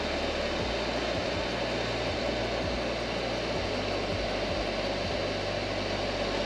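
Hot air gun of a GCD 8898 soldering station blowing steadily, an even fan-driven rush of air, while it heats a heat-shrink solder connector to melt its solder and sealing adhesive around two spliced wires.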